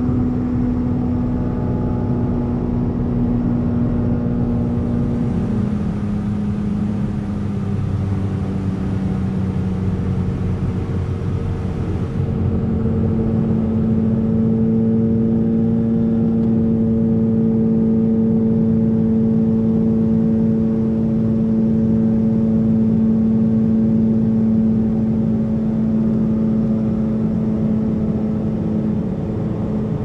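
Lake Renegade amphibian's pylon-mounted pusher engine and propeller, a steady drone heard from inside the cockpit. Its pitch drops about five seconds in and rises again about twelve seconds in, then holds: power being adjusted on a low approach to a beach landing.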